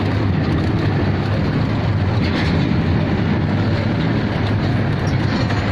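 Truck's diesel engine running with the cab rattling and clattering steadily, heard from inside the cab as the truck drives over railway tracks.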